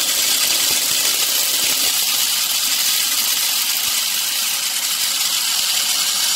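Electric spice grinder running steadily at full speed, a loud, even whir as it grinds whole cumin, coriander seed and black peppercorns to powder.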